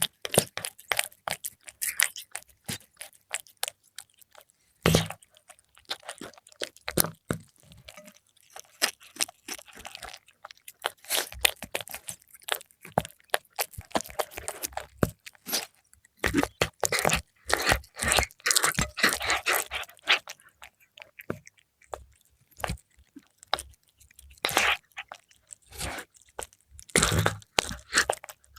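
A cat chewing and crunching fried milkfish: irregular wet crackles and crunches in clusters, with short pauses between mouthfuls.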